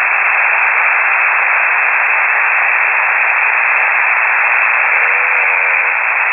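Steady shortwave radio static heard through a KiwiSDR receiver's narrow voice passband, an even hiss between transmissions. A faint wavering tone comes in briefly about five seconds in.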